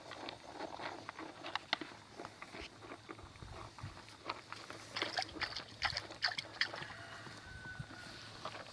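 Footsteps and cattle hooves walking: scattered, irregular clicks and knocks, busiest about five seconds in.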